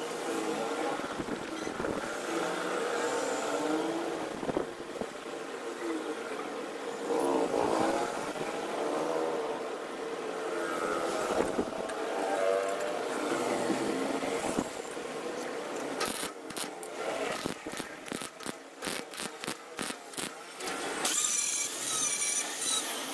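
An angle grinder with an abrasive disc grinds a steel flange over the last two seconds or so, with a loud high whine. Before it, a motor runs with a wavering pitch, followed by a run of sharp metallic knocks and clicks.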